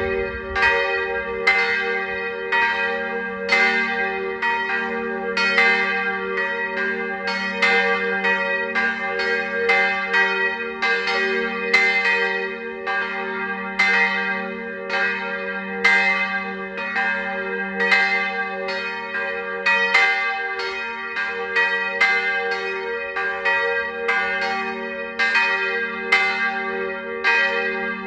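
Two swinging church bells ringing together in an unbroken stream of strikes, their hum sustaining between strokes: the ringing that calls people to a church service.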